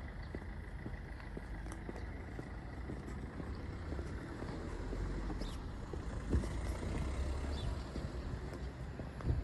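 Footsteps of a person walking on stone paving, over a low rumble of distant traffic that swells a little in the middle.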